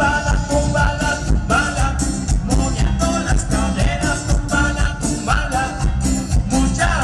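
Live cumbia band playing through a PA: electric bass and drums keep a steady beat under a keyboard melody.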